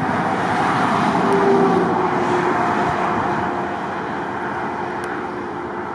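Road traffic and wind noise: a steady rushing sound that swells to a peak about a second and a half in, then eases off a little, with a faint engine hum underneath.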